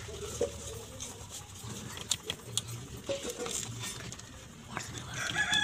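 Light clicks and taps of wires and a plastic lamp casing being handled. Near the end a rooster starts crowing, the loudest sound.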